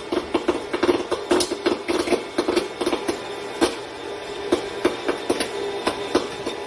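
A rapid, irregular series of sharp clicks and knocks, several a second, over a steady hum.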